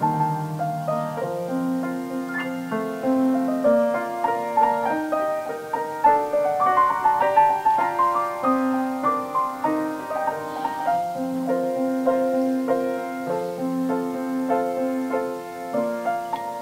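Offertory music: a keyboard instrument playing a moderate-paced instrumental piece of held notes, without singing.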